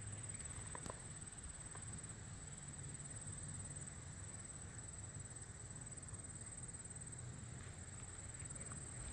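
Faint outdoor summer ambience: a steady high-pitched insect trill over a low rumble, with a faint click about a second in.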